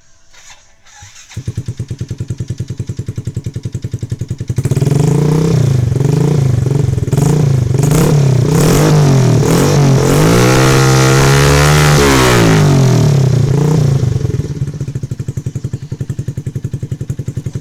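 Yamaha Jupiter Z1's single-cylinder four-stroke engine through an aftermarket Proliner exhaust, starting about a second and a half in and idling with a steady pulse. It is then revved in repeated quick blips and one longer high rev, and drops back to idle near the end.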